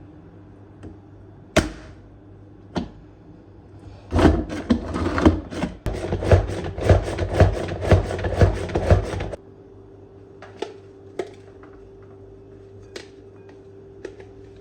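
Household clatter: a few separate knocks, then about five seconds of loud, rhythmic noisy strokes at roughly two a second, which stop suddenly and leave a faint steady hum with occasional clicks.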